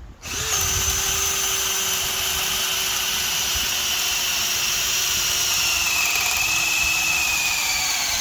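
Metabo HPT DV18DC cordless hammer drill running at speed 2, boring a large hole with a steady motor whine. In the last few seconds the pitch drops slightly as the drill bogs down a little under the load.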